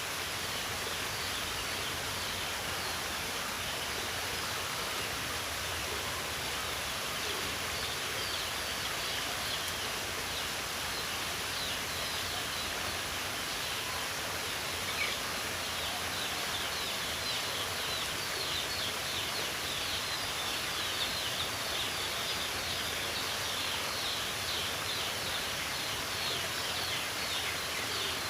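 Outdoor nature ambience: a steady rushing haze with many quick, high chirps or ticks over it, busier in the second half.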